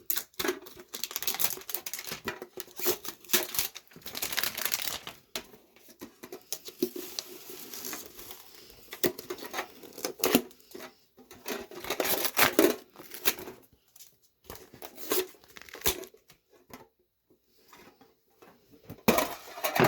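Plastic wrapping being torn and crinkled off a Pokémon card tin, in irregular crackling bursts, with a louder burst near the end.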